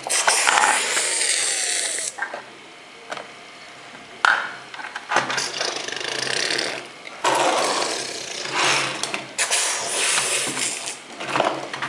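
A person imitating dinosaur roars with the voice: a series of about five raspy, hissing growls, each one to two seconds long, with short pauses between them.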